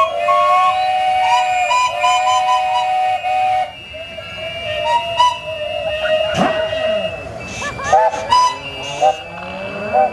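Several traction engine steam whistles blowing together: overlapping held notes at different pitches that break off about three and a half seconds in, start again, and slide down in pitch a little past the middle.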